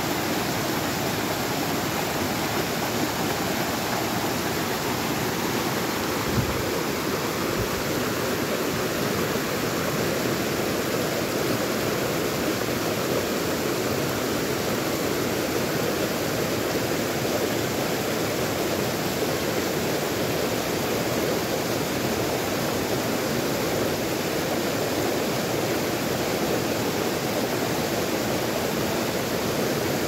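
Steady rush of a rocky mountain stream, water running over boulders and small cascades, with one brief low thump about six seconds in.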